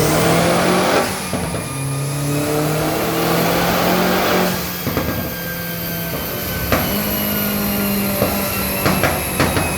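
Audi TT 225's turbocharged 1.8-litre four-cylinder engine being run hard, its note climbing and dropping back several times. Near the end come sharp pops and crackles from the exhaust, the overrun crackles mapped in at the owner's request.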